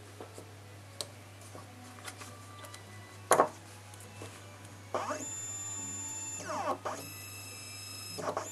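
Small clicks of connectors going onto a stepper motor driver board, with one loud click about three seconds in. Then, about five seconds in, a stepper motor driven by an Allegro A4983 driver starts: a steady electronic whine that sweeps up and down in pitch a few times as its step rate changes.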